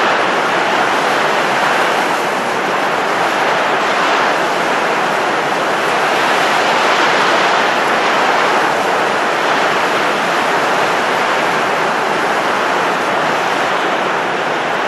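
A steady rushing noise of blowing air, used as a "blow" sound effect, swelling and easing gently every couple of seconds.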